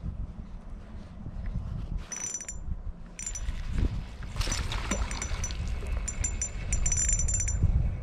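Spinning fishing reel being cranked in short spells, its gears giving a high whir in repeated bursts, over a steady low rumble.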